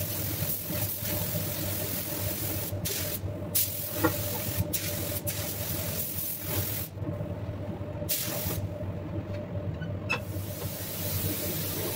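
Compressed-air DeviLbiss gravity-feed spray gun hissing as it sprays clear coat, cutting in and out abruptly several times as the trigger is pulled and released, with short pauses a little past the middle. A steady low hum runs underneath.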